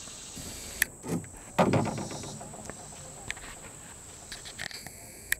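Insects singing in a steady high tone, with a few sharp clicks and a brief low murmur of a voice about a second and a half in.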